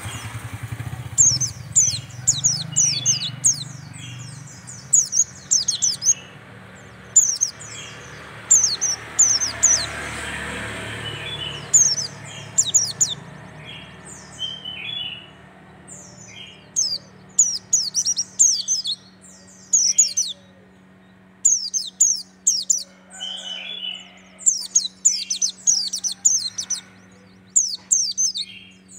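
Caged white-eye (pleci) singing in repeated phrases of fast, very high, thin notes, each phrase lasting a second or two with short pauses between: the rapid 'tembakan' song that bird keepers prize.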